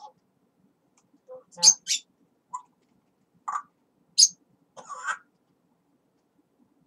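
African grey parrot chattering: a run of short, separate speech-like syllables mixed with sharp hissy clicks, with gaps between them; the loudest hissy sounds come about one and a half and four seconds in.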